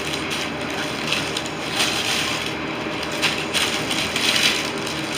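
Crackling, rustling and light clicking of mic stand parts and their packaging being handled, with louder crinkly stretches around two and three and a half seconds in.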